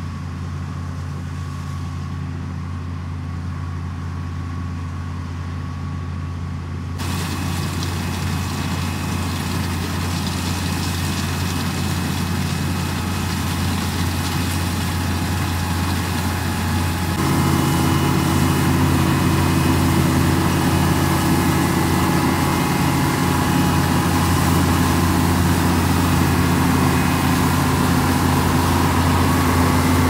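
International Harvester 1420 combine running steadily while harvesting wheat: a constant engine drone with the noise of the threshing and cutting machinery over it, growing louder in two sudden steps about seven and seventeen seconds in.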